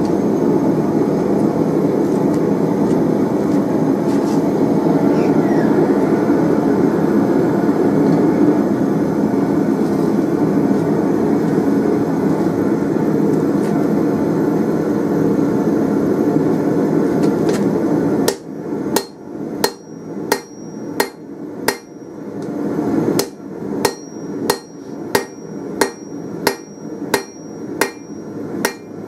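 Steady low rushing of the forge heating the bar, then from about two-thirds of the way in, hand-hammer blows on a glowing 24 mm steel round bar on the anvil, about two a second with a short pause, each with a bright anvil ring; the end of the bar is being drawn out to a taper.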